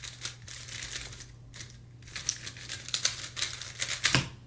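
Tornado V3 Flagship speedcube being turned fast in a solve: a rapid run of light plastic clicks and clacks as the layers snap past each other, with a louder knock a little after four seconds.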